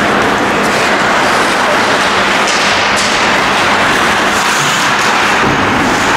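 Steady rink noise of an ice hockey game in play, skates scraping and carving the ice, with a few faint sharp scrapes or stick clicks over the continuous rush.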